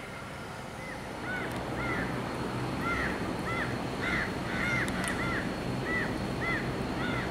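A bird calling over and over, short arched calls about two a second, over the low, distant rumble of the Boeing 737-800's CFM56 jet engines, which grows a little louder about a second in.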